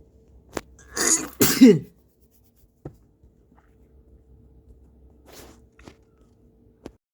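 A person coughing: two harsh coughs in quick succession about a second in, the second trailing off in a falling voiced tone.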